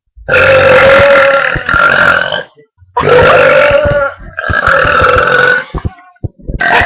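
A girl belching loudly: three long burps one after another, each a second or two, and a fourth starting near the end.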